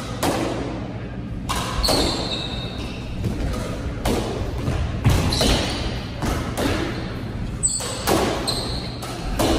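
Squash rally: a quick series of sharp cracks as the ball is struck by racquets and rebounds off the court walls, about a dozen in all. Short squeaks of court shoes on the hardwood floor come in between.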